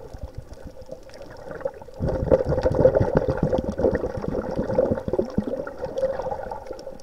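Water sloshing and gurgling, getting louder about two seconds in.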